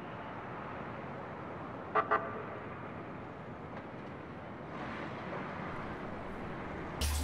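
Steady city traffic noise, with a car horn giving two quick toots about two seconds in.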